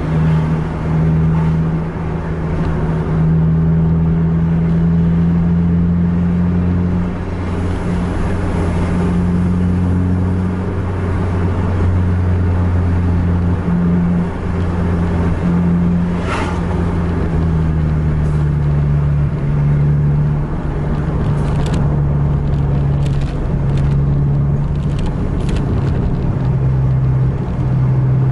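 Bus diesel engine pulling at road speed, heard from inside the cab: a steady low drone whose pitch dips slightly about seven seconds in and shifts again about eighteen seconds in. A brief sharp click about sixteen seconds in.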